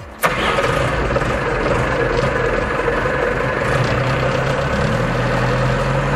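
Wheel loader's diesel engine starting, heard from the cab: it catches suddenly about a quarter-second in, then runs steadily at idle, its note settling about five seconds in.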